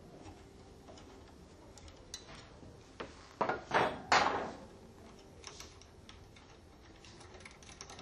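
Metal clicks and clinks of a spanner working the steel screws and nuts that hold the actuator bracket to a butterfly valve, as they are loosened and taken off. A short cluster of louder metal clatter comes about halfway through, with faint ticks of metal parts after it.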